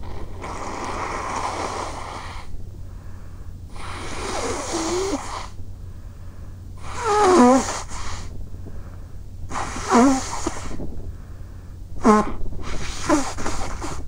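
A person with a cold gasping in a run of six noisy rushes of breath, about two seconds apart, several with a short voiced catch: the build-up of a sneeze being brought on, with the sharpest, shortest burst near the end.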